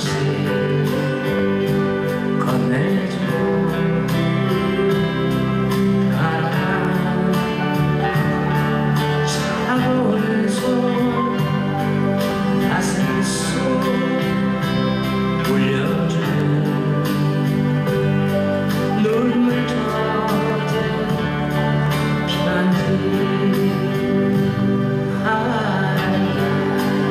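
Live music: a singer accompanying himself on acoustic guitar, strummed steadily, with a sustained low accompaniment underneath.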